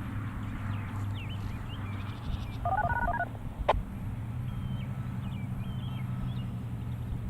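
Outdoor ambience with a steady low hum, small birds chirping, and a short run of stepped beeping tones about three seconds in, followed by a single sharp click.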